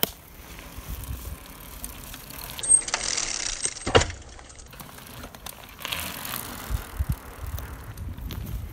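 Mountain bike ridden in a wheelie over concrete: tyre and drivetrain rattle, with a sharp clack about four seconds in and a few low thumps around seven seconds.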